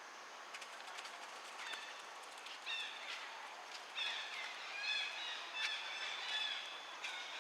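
A run of short, high-pitched chirping animal calls, some sliding in pitch, starting a couple of seconds in and busiest in the middle.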